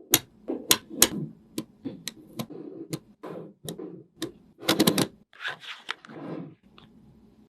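Irregular sharp clicks and taps with short stretches of rustling, from hands handling small craft materials.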